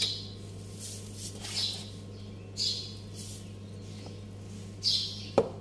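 Granulated sugar poured into a plastic blender jar in about four short pours, each a brief hiss of sliding grains, with a couple of knocks near the end. A steady low electrical hum runs underneath.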